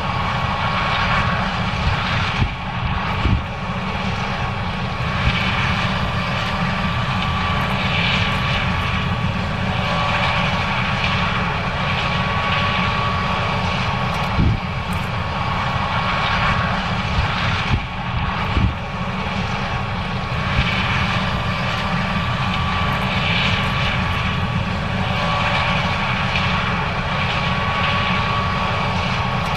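John Deere S790 combine running steadily while harvesting corn, with a constant high whine over the engine noise and a few short knocks.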